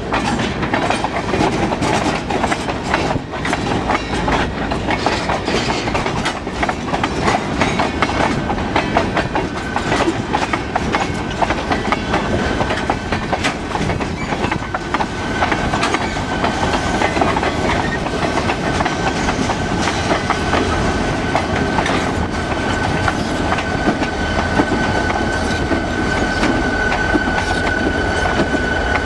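Freight train of tank cars rolling slowly past at close range, wheels clicking over the rail joints over a steady rumble. A thin steady whine joins about ten seconds in and grows stronger. Near the end the low diesel rumble of the trailing locomotives swells as they come alongside.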